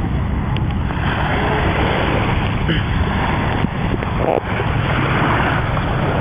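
Steady wind noise rumbling on the microphone over the continuous wash of surf.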